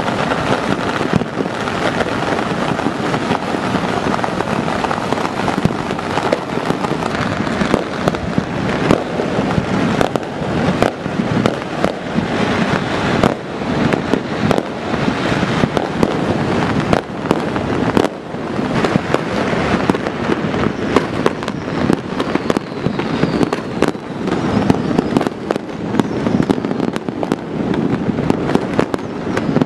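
Many fireworks and firecrackers going off across a city at once: a continuous, overlapping mass of bangs, pops and crackling that never lets up.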